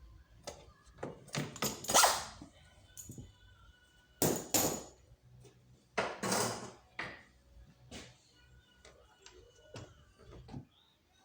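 Hand tools and metal parts clinking and clanking as they are handled in an engine bay: a string of separate knocks and rattles, the loudest about 2, 4.5 and 6.5 seconds in.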